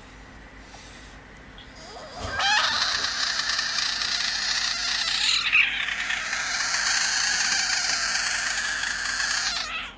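Frog screaming with its mouth wide open: a long, loud scream that starts about two seconds in and holds for some seven seconds, with a short break about halfway. It is the defensive distress scream frogs give when threatened.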